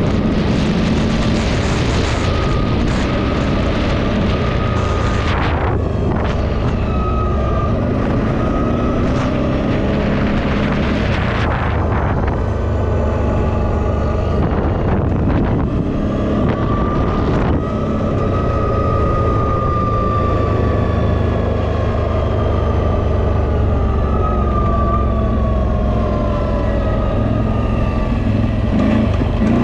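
CFMoto X8 EFI ATV's V-twin engine running while riding, its pitch rising and falling with the throttle and climbing near the end. Wind buffets the microphone in gusts early on and again about a third of the way through.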